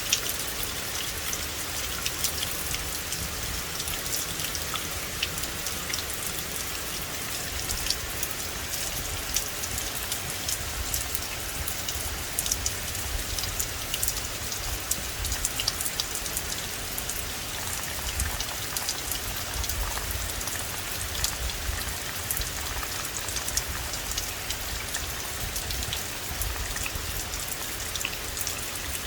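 Steady rain falling on a forest: a dense, even patter with many sharp, close drop hits scattered through it.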